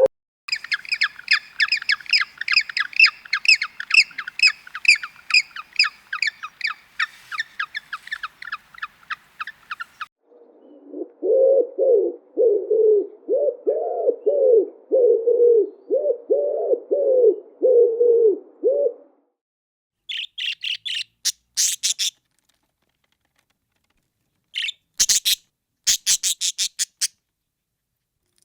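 Bird calls in three runs: about ten seconds of rapid high chirps, several a second; then about nine seconds of lower repeated calls, each rising and falling; then a few sharp, high calls with silent gaps between them near the end.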